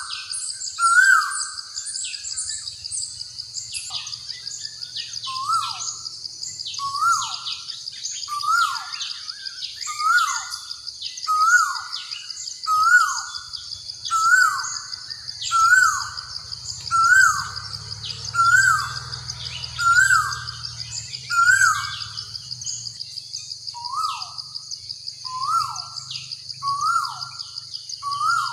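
Birdsong soundscape: one bird repeats a short hooked call about once a second, pausing briefly about two thirds of the way through, while other birds add quick high chirps over a steady high insect buzz.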